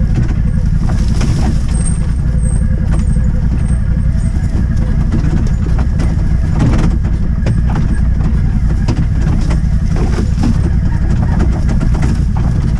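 Off-road vehicle driving over rough ground: a steady loud rumble of engine and wind, with scattered knocks and rattles from the bumps.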